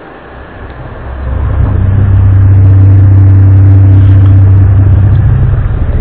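Loud low droning hum, one of the unexplained 'strange sounds from the sky', with a strong deep tone and a fainter higher one. It swells up over about the first second and a half, then holds steady.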